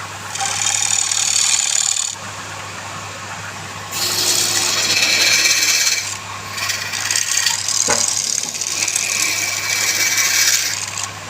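A tool scraping or abrading wood in three passes of about two to four seconds each, with short pauses between, over a steady low hum; one sharp click about eight seconds in.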